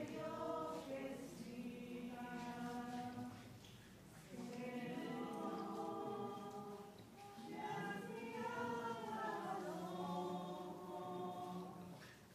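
A choir singing a slow sacred hymn in long held phrases, with brief breaks between phrases: the communion hymn at Mass.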